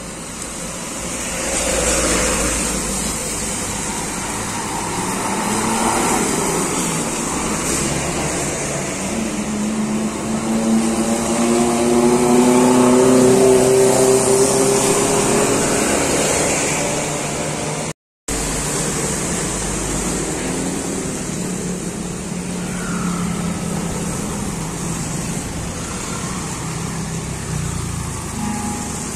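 Road traffic passing on a wet road, with tyres hissing throughout. Just before the middle, an intercity coach goes by close, its diesel engine climbing in pitch and growing loudest as it passes. The sound cuts out for a moment, then lighter traffic of cars, a minibus and motorcycles keeps passing.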